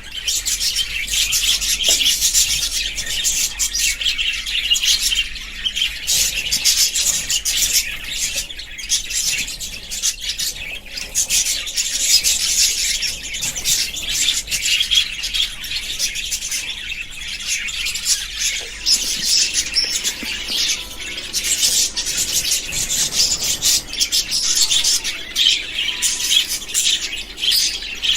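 Budgies chirping and chattering continuously, a dense stream of rapid high-pitched chirps with occasional squawks.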